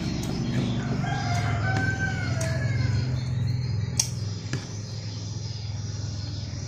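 A rooster crowing once, one arching call about two seconds long starting about a second in, over a steady low hum. A single sharp click about four seconds in.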